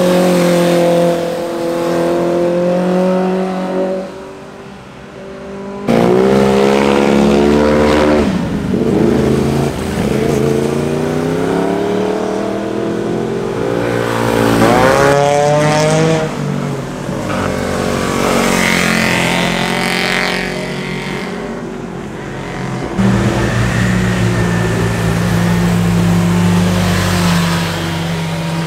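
Sport motorcycle engines revving through corners one bike after another, the engine note rising on acceleration and falling as each bike passes. The sound cuts abruptly between bikes several times.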